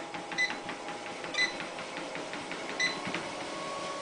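Motorised treadmill running with a steady motor hum and belt noise, with three short high squeaks about a second apart and faint light ticks.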